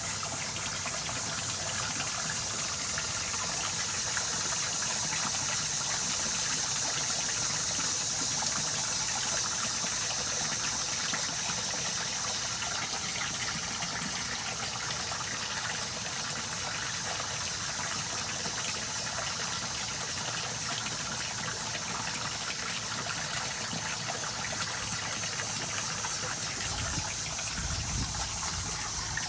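Water splashing steadily onto a fish pond's surface, a continuous rushing hiss with no break.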